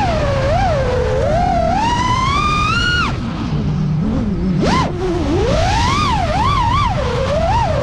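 Brushless motors of a 5-inch FPV racing quadcopter whining, the pitch rising and falling quickly with the throttle. The whine cuts off suddenly about 3 s in, punches up briefly near 5 s, then climbs and wobbles through a run of quick throttle blips.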